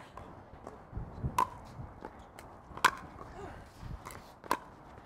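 Pickleball paddles striking the ball in a soft dinking rally: three sharp, hollow pops about a second and a half apart, with fainter taps and shoe scuffs on the hard court between them.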